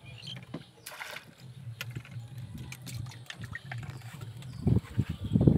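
Small boat on the water with scattered knocks and light water splashes, the splashing and knocking growing louder near the end.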